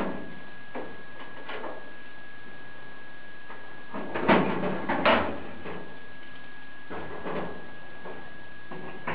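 Clecos being set with Cleco pliers into the aluminium skin of an airplane tailcone: a few short metallic clicks and scrapes at irregular intervals, the loudest cluster about four to five seconds in, over a faint steady high whine.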